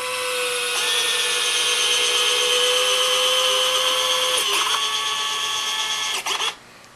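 Small electric gear motor whining as it drives the jack-screw actuator of a converted Robart retract to swing the landing-gear strut. Its pitch steps up slightly about a second in and shifts again after about four seconds. It cuts off near the end, as the actuator reaches the end of its travel and the controller stops it on the rise in motor current.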